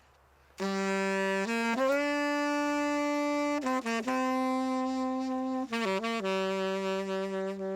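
Tenor saxophone playing a short solo phrase of long held notes, starting about half a second in. Quick passing notes link each held note to the next, and the phrase settles on a low held note.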